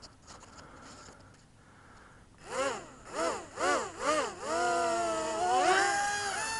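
Stock 7mm brushed micro-quad motors spinning Hubsan clear props. The throttle is blipped up and down four times, each a rising-and-falling whine. The motors then hold a steady high whine that steps up in pitch near the end.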